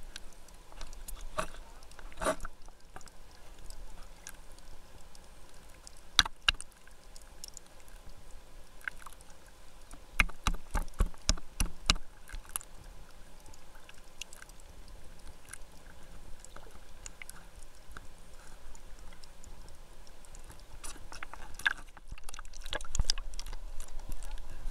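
Muffled underwater sound picked up through a camera's waterproof housing: a low rumble with scattered sharp clicks and taps. About ten seconds in comes a quick run of clicks, roughly four a second, and another cluster of clicks comes near the end.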